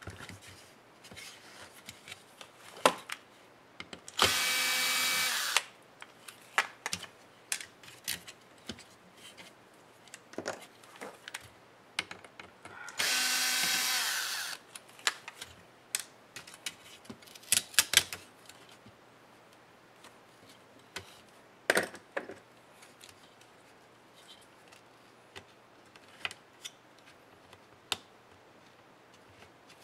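Cordless electric drill-driver running twice, about a second and a half each time, backing screws out of a laptop's plastic bottom case. Between the runs come sharp clicks and taps of plastic parts and screws being handled.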